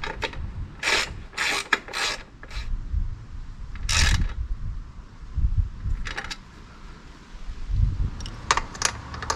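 Ratchet wrench clicking in several short bursts as it snugs up the exhaust clamp bolt on the motorcycle's link pipe, the loudest burst about four seconds in.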